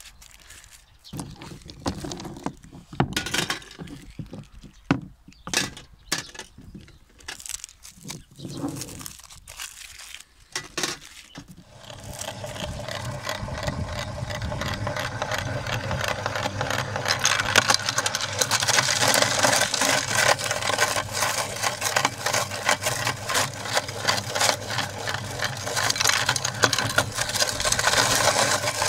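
Plastic lollipop wrappers crinkling and tearing as hard-candy lollipops are unwrapped. About twelve seconds in, a hand-cranked metal meat grinder starts crushing the hard candy: a continuous dense crunching and grinding that grows louder after a few seconds.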